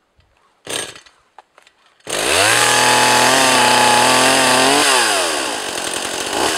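Stihl MS 180 C two-stroke chainsaw being pull-started warm, after it was already run earlier that day. It catches about two seconds in and runs at high speed for a few seconds, then drops to a steady idle near the end.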